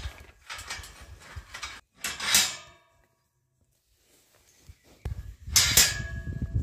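A Shetland sheep nosing at a handheld phone: rustling and bumping on the microphone, with two loud bursts, one about two seconds in and one near the end.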